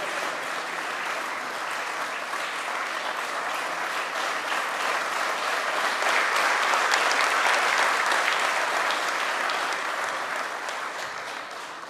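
Audience applauding: many hands clapping together, swelling to its loudest about halfway through and dying down near the end.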